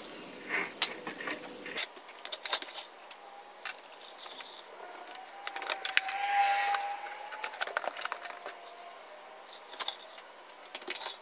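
Scattered light metallic clicks and clinks of hand tools and brake hardware being handled, with a brief steady tone and hiss about halfway through.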